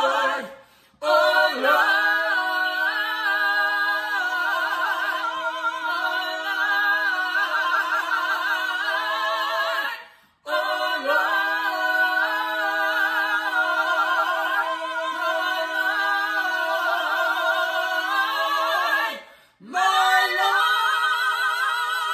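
A cappella gospel praise singing by three voices, two women and a man, holding long notes in harmony with vibrato. The voices break off briefly three times: about half a second in, near the middle, and shortly before the end.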